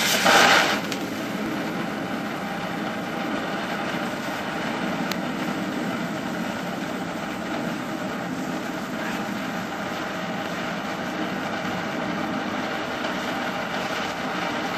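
Fountain firework spraying sparks, a steady hiss, briefly louder in the first second.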